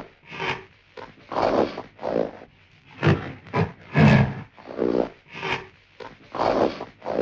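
An animal giving a run of short, rough grunting calls, roughly one to two a second and unevenly spaced.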